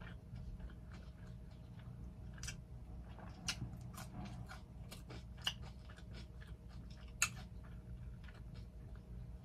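Close-miked ASMR chewing of a homemade cheeseburger, with scattered mouth clicks and smacks, the sharpest about three and a half, five and a half and seven seconds in.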